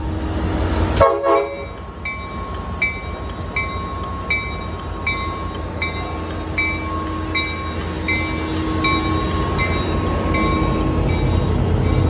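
A railway bell dinging steadily, about four dings every three seconds, over the low rumble of a diesel locomotive standing at the platform. A short loud noise sounds about a second in.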